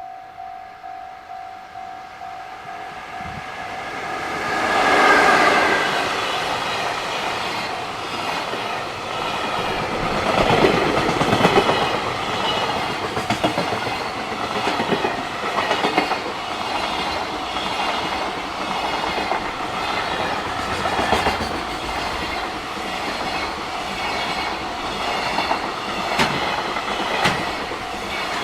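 A Japanese level-crossing alarm rings about twice a second. About five seconds in, a freight locomotive sounds its horn. Then a long freight train passes, its wheels clattering rhythmically over the rail joints while the crossing alarm keeps ringing.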